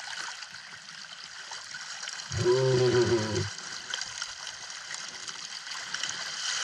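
River water rippling, trickling and lightly splashing close to a camera held at the water's surface as swimmers move through the shallows. About two and a half seconds in, a low voice sounds for about a second.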